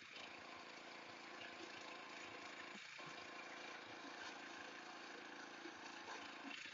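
Small engine of a walk-behind mini cultivator running steadily while its rotary tines work the soil.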